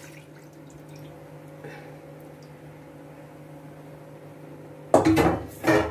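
Steady low hum of a kitchen appliance or mains, then, about five seconds in, a short loud clatter of cookware being handled.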